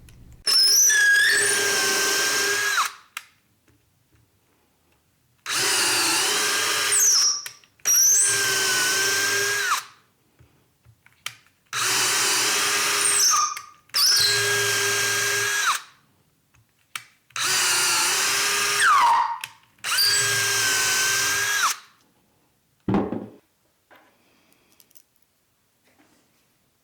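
A power drill runs in seven short bursts of about two seconds each, its motor spinning up and winding down each time, as it drives a wood threading tap into the plywood holes. A single brief knock follows near the end.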